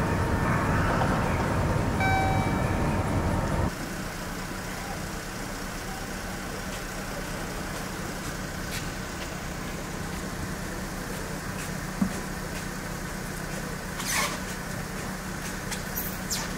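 Outdoor street ambience with road traffic, with a short beep about two seconds in. After a cut a little under four seconds in, it changes to quieter outdoor ambience with a steady low engine-like hum and a few faint knocks.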